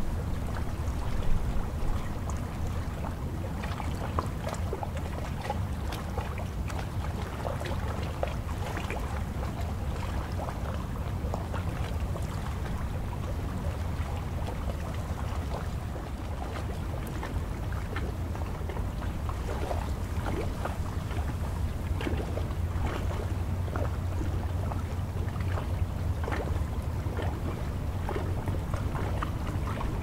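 Choppy lagoon water lapping and splashing against a concrete slipway, many small irregular splashes over a steady low rumble of wind on the microphone.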